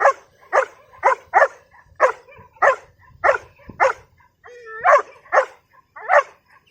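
Belgian Malinois barking in a steady series, about a dozen sharp barks at a little under two a second, with a short drawn-out whine between barks around the middle. It is barking on command in protection training, just after the cue "see spot".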